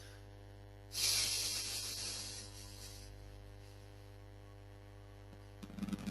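Steady electrical mains hum on the microphone line. About a second in, a sudden hiss starts and fades away over about two seconds.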